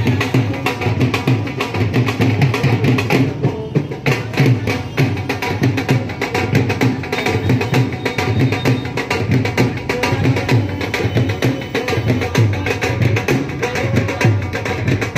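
Music with a fast, steady percussion beat.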